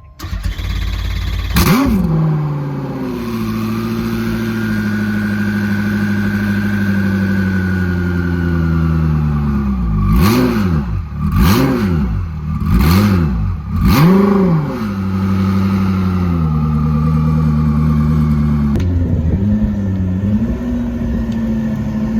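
A Koenigsegg twin-turbo V8 starts up and flares briefly, then settles into a high cold idle that slowly sinks. Midway it is blipped four times in quick succession, then falls back to idle, which drops lower near the end.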